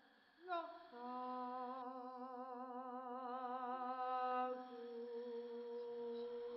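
A woman's voice humming a long held note with a wavering vibrato, after a short rising note. This is part of a wordless vocal performance.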